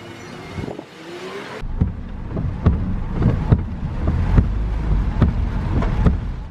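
Background music, then about a second and a half in a cut to a car's low rumble with irregular knocks and thumps on a wet road.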